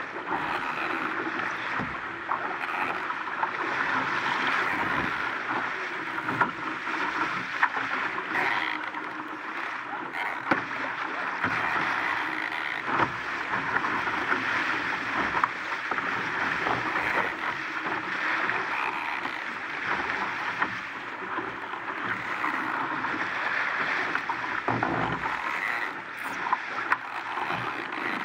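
Water rushing and splashing along the hull of an RS Aero sailing dinghy moving fast in a strong breeze: a steady hiss with occasional sharp knocks.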